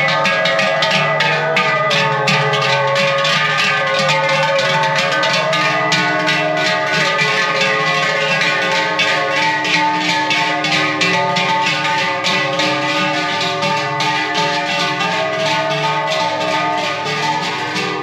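Large cowbells worn by the walking cattle, clanging and ringing steadily with many overlapping strikes and sustained bell tones.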